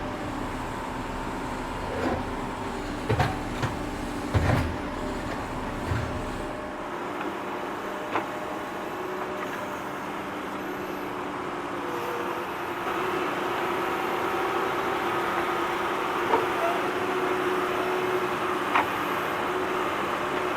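Tractor engine running steadily while digging, with scattered sharp clanks and knocks, several in the first few seconds and a few more later. About two-thirds of the way in, the engine note grows louder.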